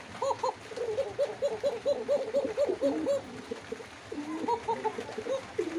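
Domestic pigeon cooing: a fast run of short, arched notes, about five a second, easing off for about a second past the middle and then resuming more sparsely.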